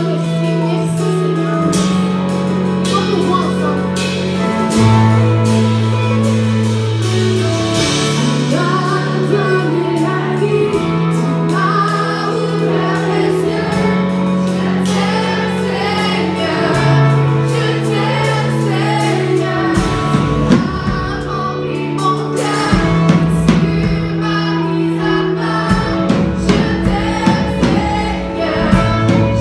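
Live worship band: women singing a French praise song into microphones over keyboard, guitar and drums. Long held bass notes change every couple of seconds, and the drum hits grow stronger about two-thirds of the way in.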